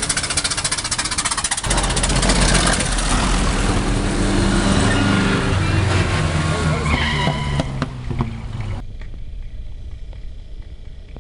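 Vintage cars driving past. First comes an old touring car's engine with a fast, even pulsing. It changes suddenly to another vintage car's engine running loudly, its pitch rising and falling as it goes through the gears, and about nine seconds in the sound drops away abruptly to a quieter engine.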